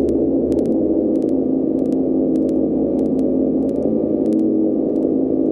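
A steady droning hum with static, made of several held tones, with faint sharp clicks a few times a second.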